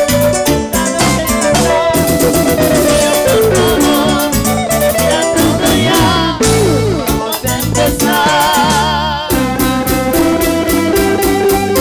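Live band playing Latin dance music through a loud PA, with a steady beat and wavering held melody notes.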